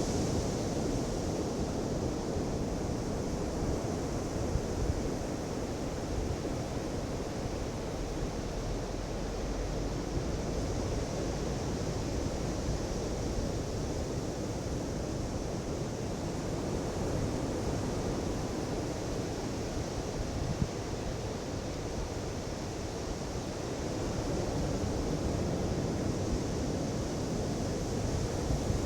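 Ocean surf: waves breaking and washing up a beach in a steady hiss with a low rumble. The wash swells and fades slowly every several seconds.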